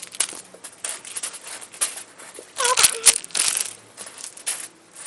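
Crinkling and clicking of plastic handled by hand, with scattered sharp ticks and a short pitched squeak a little under three seconds in.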